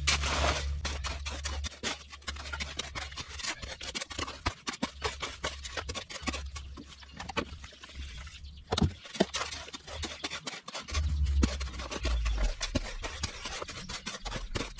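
A shovel scraping and chopping through concrete mix in a plastic mixing tub, in quick, irregular strokes.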